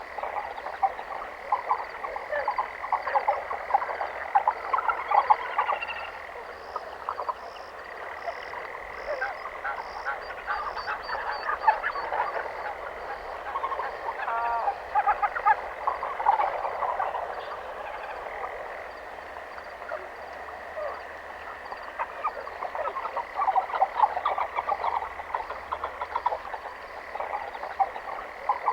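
A chorus of many frogs croaking continuously, their short calls overlapping, over a steady high trill.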